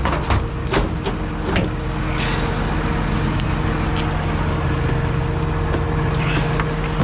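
Diesel lorry engine idling steadily, with a few sharp clicks and knocks of metal gear being handled in the first two seconds.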